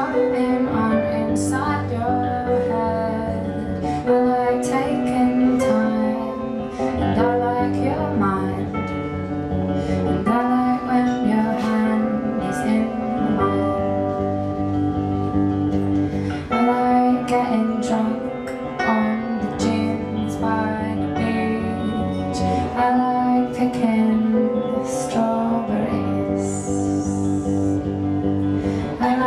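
Live pop music: a strummed guitar playing a repeating chord pattern, with a woman's singing voice over it.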